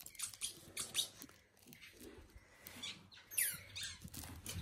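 Squeaky dog-toy tennis ball being handled: faint clicks and rubbing, then one short falling squeak about three and a half seconds in.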